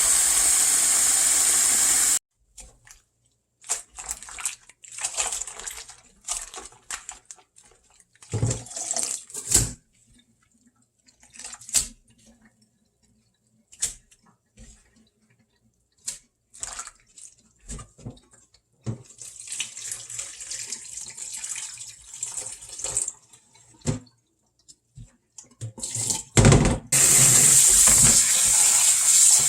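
Kitchen tap running into a sink, then stopping for irregular splashing and swishing of water as fresh green laver is rinsed by hand. The tap runs steadily again near the end.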